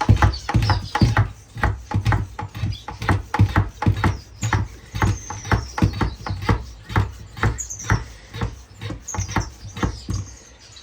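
Hand pump of a pump-up pressure sprayer being worked to pressurise the tank: a steady stroke about three times a second with a dull thump on each, stopping shortly before the end. Finches chirp faintly behind it.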